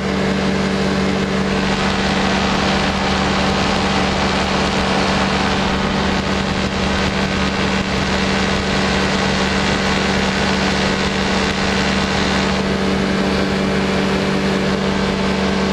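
Powered parachute's engine and propeller running steadily in cruise flight: a constant engine hum with an even rush of air over it.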